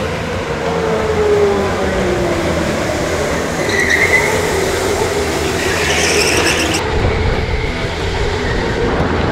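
Electric go-karts running hard on an indoor concrete track: a steady rumble of tyres and chassis under the whine of the electric motors, which falls away in pitch early on as a kart slows. A short tyre squeal comes about four seconds in.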